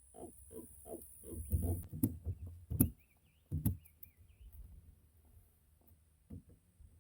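A rapid series of short knocks and thumps, about three a second, for the first few seconds, then two sharper knocks, with a faint bird chirping midway.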